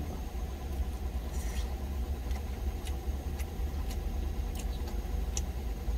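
A truck's engine idling with a steady low rumble, heard from inside the cab, with a few faint clicks of chopsticks against a stainless-steel bowl.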